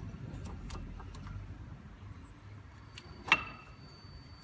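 Brake pad's steel backing plate being fitted into the caliper bracket: a few faint metal clicks, then one sharp metallic clink with a short ring about three seconds in as the pad seats.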